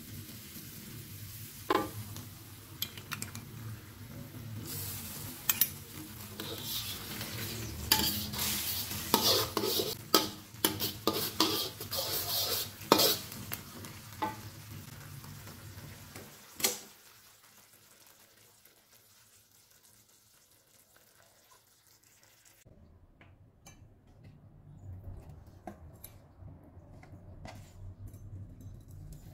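A metal spoon stirring and scraping a sauce of minced garlic and onion sizzling in a wok, with sharp clatters of spoon on pan, loudest about eight to thirteen seconds in. The stirring stops with a last clack about seventeen seconds in, and the sound then drops to near quiet.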